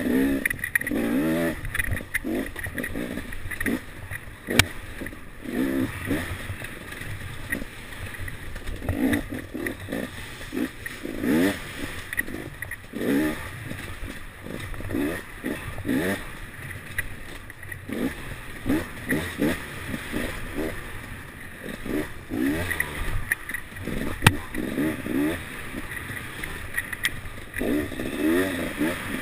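Enduro motorcycle engine under hard riding, revving up and dropping back again and again as the rider accelerates and shifts along a rough dirt trail, with a couple of sharp knocks from the bike over the bumps.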